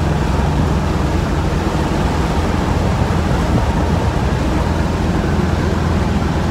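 1963 Chevrolet Impala SS under way at a steady highway cruise, heard from inside the cabin: a loud, steady low engine and exhaust drone with road rush over it.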